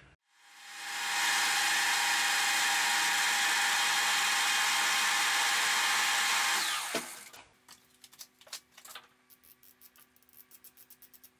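Metal lathe spinning up, running steadily for about six seconds, then winding down to a stop with a knock. After that, a micrometer's ratchet thimble clicks rapidly as it is closed onto the turned diameter.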